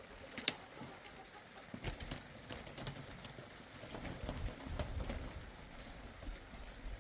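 Irregular sharp clicks and clinks, bunched about two to three seconds in and again near five seconds, over a low rumble.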